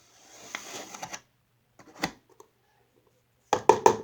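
Handling noises while mixing the slime ingredients: a soft rustle, a single click about two seconds in, then a quick cluster of loud sharp clicks and knocks near the end.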